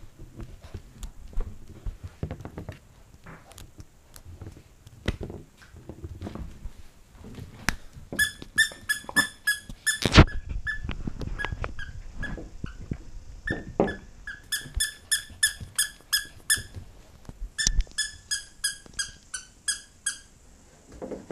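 A squeaky dog toy squeaked in three quick runs in the second half, about five even high squeaks a second. Before them there are scattered light knocks and taps, and one sharp knock about ten seconds in is the loudest sound.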